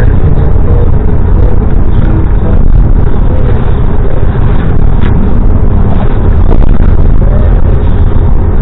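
A car on the move: a loud, steady low rumble of engine and road noise that never lets up.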